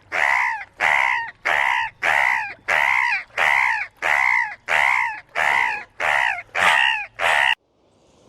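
An animal's loud, harsh calls repeated evenly about two a second, each call falling in pitch, stopping suddenly near the end.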